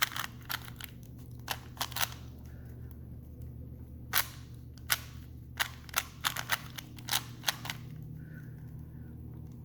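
Rubik's Cube being turned during a speed solve: irregular sharp clicks of the layers snapping round, singly and in quick clusters, with a pause near the end. A steady low hum runs underneath.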